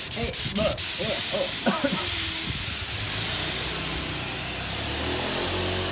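Gravity-feed air spray gun spraying a test coat of paint onto a motorcycle body panel: a steady hiss of compressed air and atomised paint, with a few sharp clicks near the start.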